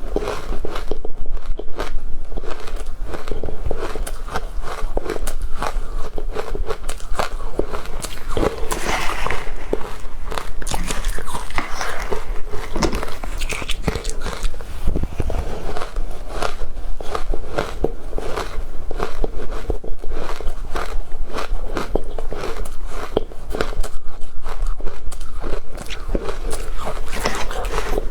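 Close-miked biting and chewing of powdery matcha ice: a dense run of crisp crunches and crackles, one after another without a break.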